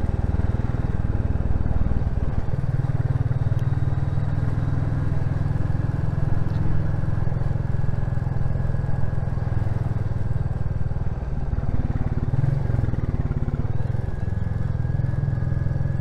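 Royal Enfield Classic 350's single-cylinder engine and exhaust running steadily as the motorcycle is ridden, its note changing about two and a half seconds in.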